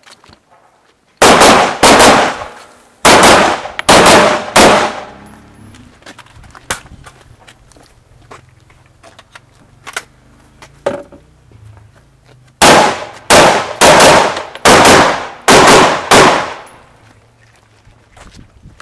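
AR-15 carbine fired at close range in two quick strings. About five shots come a second or so in, then after a pause of several seconds about seven more, each crack ringing out briefly.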